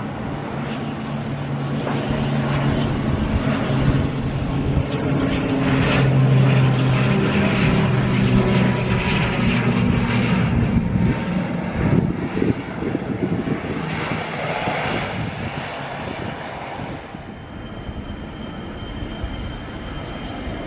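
An airplane's engines passing, a steady low drone that grows louder to a peak about six to ten seconds in, then fades.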